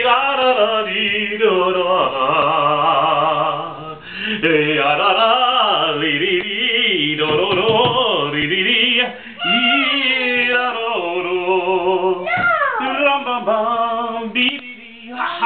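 Several voices singing together without instruments, the notes sliding up and down, with one long falling slide about twelve seconds in.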